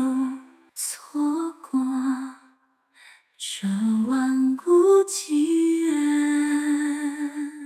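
A solo voice sings the closing line of a slow Chinese pop ballad, in two soft phrases with a brief pause between them. It ends on a long held note that fades away.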